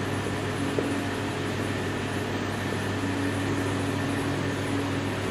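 Steady low machine hum filling the room, with faint marker-on-whiteboard writing sounds and a small tap about a second in.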